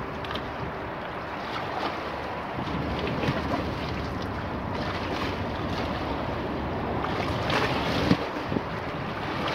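Choppy river waves lapping and splashing against granite embankment steps, with wind rumbling on the microphone. A larger wave washes up over the bottom step about eight seconds in.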